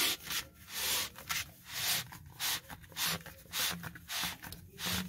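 Foam float being worked onto a 3/4-inch PVC pipe in short pushes, the foam rubbing and scraping along the plastic about twice a second. The pipe is a tight fit in the float's hole.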